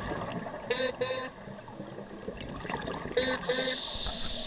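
Underwater scuba sound: a steady rumble of regulator exhaust bubbles, with short electronic beeps sounding in pairs, once about a second in and again near three seconds in, followed by a steady high tone.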